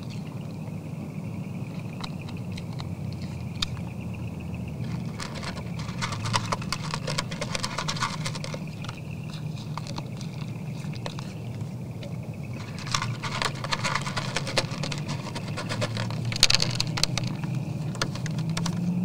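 Whitetail buck chewing and crunching feed from a trough, in two bouts of dense crunching clicks: one about five seconds in, another from about thirteen seconds in, under a steady low hum.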